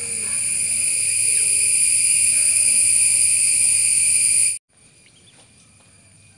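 A steady, high-pitched insect trill that grows louder, then cuts off abruptly about four and a half seconds in. A much fainter steady trill follows.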